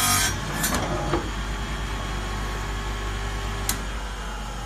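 Hose cutting machine's blade grinding through rubber hydraulic hose, ending about a third of a second in; then the machine's electric motor hums steadily with the blade running free, with a few light knocks.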